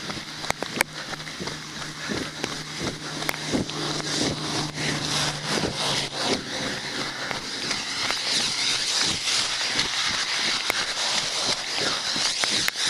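Heavy rain on a street with passing traffic: a vehicle's engine hum through the first half, then a swelling hiss of tyres on wet road and falling rain.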